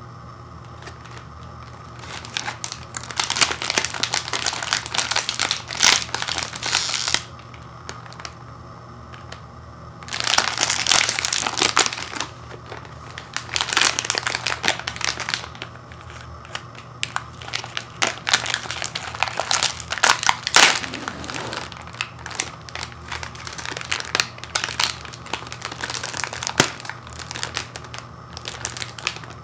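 Plastic wrapper of a Fig Newtons cookie package crinkling in bursts as it is handled and turned in the hands, with a lull of a few seconds in between. Near the end the package's resealable flap is peeled open.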